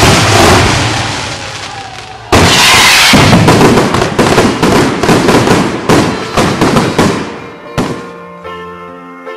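Fireworks display: dense crackling and bangs. A sudden loud burst of crackle comes about two seconds in and dies away over the next five seconds. Music with sustained notes begins near the end.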